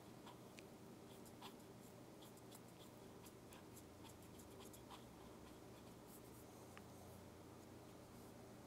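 Faint scratching of a Pilot Parallel fountain pen's flat nib on paper, laying down short shading strokes, with scattered small ticks as the nib touches down and lifts.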